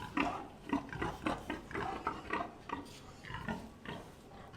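Wild boar grunting, a run of short grunts about two or three a second.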